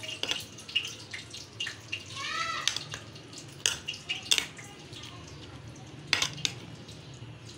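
Metal spoon stirring chopped fruit through a thick yogurt-and-cream mixture in a glass baking dish: wet squelching with scattered clinks and knocks of the spoon against the glass.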